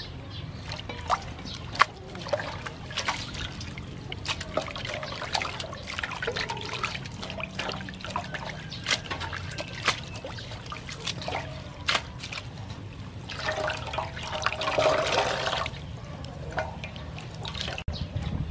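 Hands rinsing and squeezing wakame seaweed in a large metal basin of water: repeated splashing, swishing and dripping, with a louder stretch of sloshing about three quarters of the way through.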